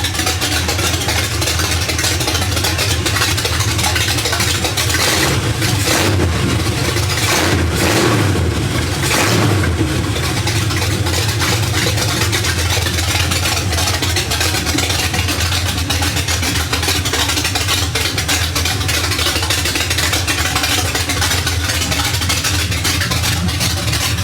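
1979 Chevy C10 engine running loud through open headers, freshly brought back to life, with a few quick revs about six to ten seconds in before settling back to a steady idle.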